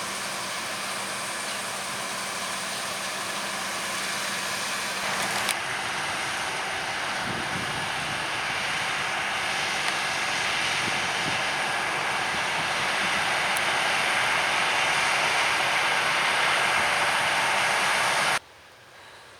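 Heavy farm machinery at harvest running with a loud, even noise, which changes suddenly about five seconds in and then grows slowly louder, as a machine coming closer. It cuts off abruptly shortly before the end.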